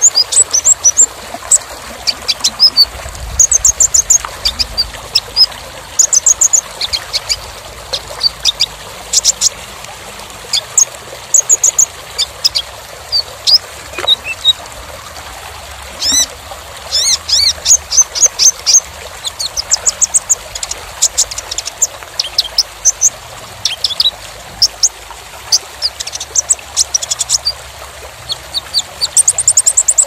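Kolibri ninja sunbird singing: rapid bursts of high, thin chirps and quick trills in short phrases, thickest in a dense flurry about halfway through, over a steady trickling-water background.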